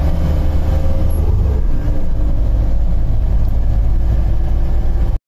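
Inside a moving vehicle on the road: a steady, loud, low rumble of engine and road noise. It cuts off abruptly near the end.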